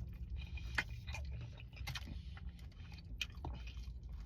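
A person chewing and biting into barbecued meat close to the microphone, with scattered sharp clicks and crunches, the loudest about a second in, over a steady low hum.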